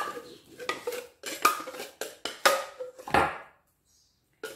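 A spoon scraping and knocking against a glass jar of paste and a steel bowl as the paste is scooped out and dropped in: a run of short clinks and scrapes that stops for about a second near the end, then one more knock.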